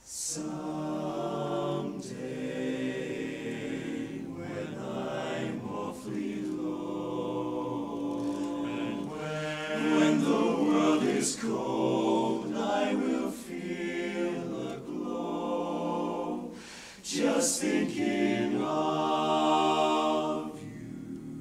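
Male barbershop chorus singing a cappella in close harmony, coming in together after a moment of quiet. Sustained chords swell louder about halfway through and again near the end.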